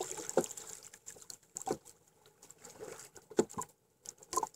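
Water lapping and trickling against the hull of a small outrigger boat, with about four soft knocks spaced roughly a second apart.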